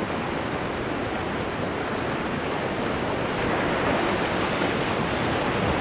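Whitewater river rushing steadily around a paddle raft, an even wash of water noise that grows a little louder toward the end.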